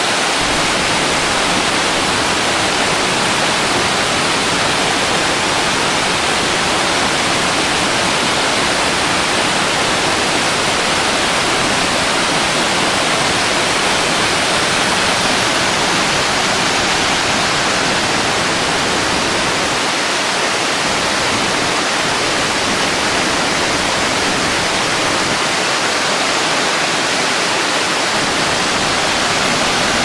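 Waterfall: water pouring down a rock face and crashing onto the rocks and pool below, a loud, steady rush with no break.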